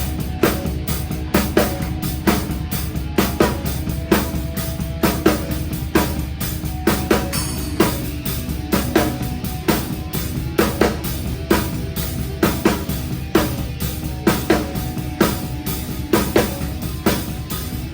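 Metal band playing live, led by a drum kit close to the microphone: a steady kick drum under regular sharp snare and cymbal hits, with a constant bed of distorted guitars and bass.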